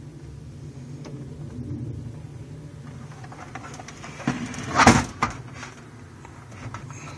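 A steady low hum with a brief clatter of knocks and rustling about five seconds in.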